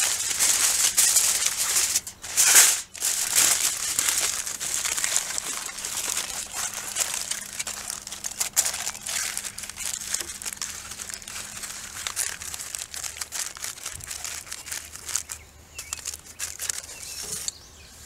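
Aluminium foil being crinkled and crimped around a pan as a cover. The dense crackling is loudest in the first few seconds and grows softer and more scattered toward the end.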